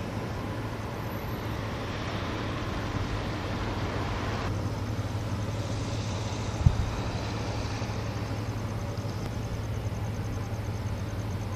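Steady road-vehicle rumble and noise, with one sharp thump a little past the middle.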